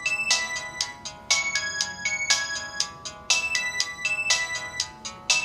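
Sharp SH-01B mobile phone playing its electronic ringtone melody through its small speaker, thin with almost no bass, loud phrases starting about once a second.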